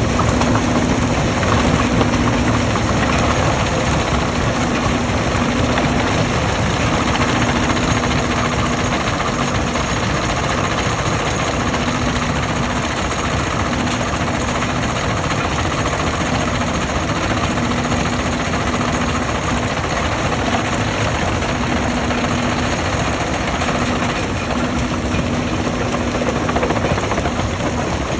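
Stone crushing machinery running: a loud, steady mechanical noise with a low hum that comes and goes.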